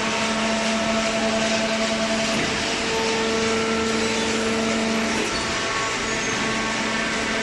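Machinery running steadily: a loud, even noise with humming tones that shift in pitch now and then.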